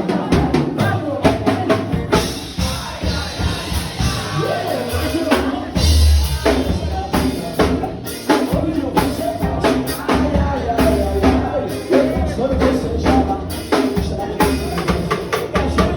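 Live forró band playing, with the drum kit to the fore: a steady run of kick and snare hits under a melodic line. The drums thin out for a few seconds and come back in full, with a heavy bass, about six seconds in.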